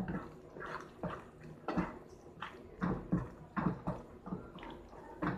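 Spoon or spatula stirring thick lauki halwa in a nonstick pan, scraping and knocking against the pan roughly twice a second.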